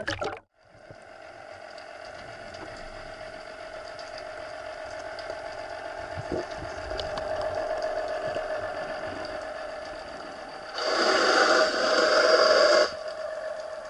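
Water splashing as the camera goes below the surface, then the underwater hum and whine of a distant boat engine carried through the water, steady and slowly growing louder. Near the end a loud rushing hiss lasts about two seconds and cuts off suddenly.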